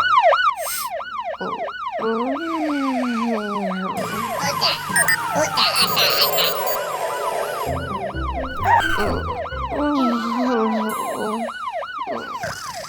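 Cartoon fire truck siren wailing in quick rising-and-falling sweeps, about four a second, with background music playing under it.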